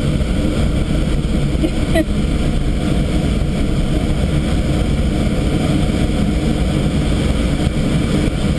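Steady rush of airflow around an ASK-21 sailplane's canopy and fuselage, heard inside the cockpit of the engineless glider in flight. There is one brief click about two seconds in.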